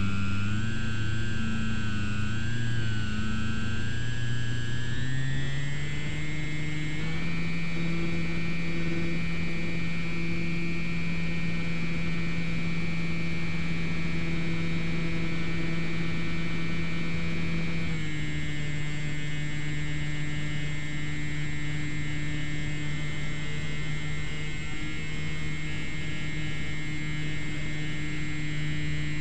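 Electric motor and propeller of a GWS Slow Stick model plane humming, heard from on board. The pitch wavers for the first few seconds, rises about five to seven seconds in as the throttle opens for takeoff and the plane climbs away, holds steady, then drops a little past the halfway mark as the throttle eases back.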